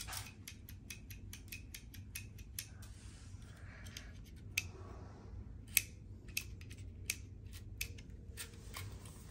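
Snap Circuits plastic slide switch being flicked back and forth over and over, a string of sharp irregular clicks as the lamp circuit is switched on and off.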